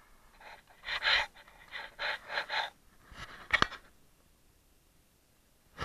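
A person breathing hard, in a few heavy gasping breaths.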